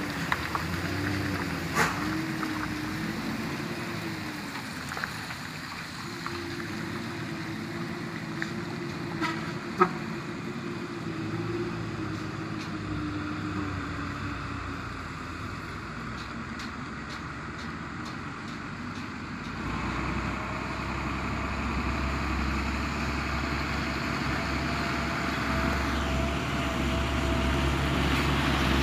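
Heavy diesel trucks running in slow traffic, with a couple of sharp knocks early on. About two-thirds of the way through, a Mitsubishi Fuso tanker truck's diesel engine starts coming closer, its low rumble growing steadily louder.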